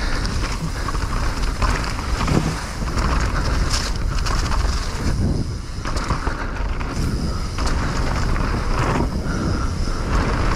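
A mountain bike descending a dirt bike-park trail: wind buffeting the microphone over the rumble of tyres on dirt, with frequent knocks and rattles as the bike hits bumps.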